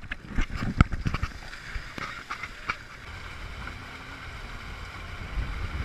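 Several sharp knocks and rustles in the first few seconds, as of fabric and hands rubbing against the camera, then a steady low rush of wind on the microphone.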